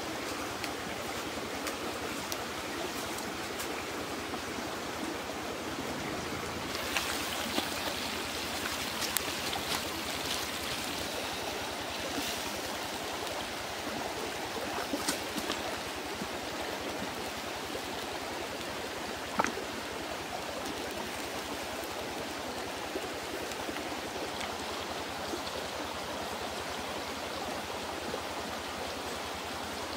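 Steady rush of flowing stream water, with a few scattered soft clicks, the sharpest about two-thirds of the way through.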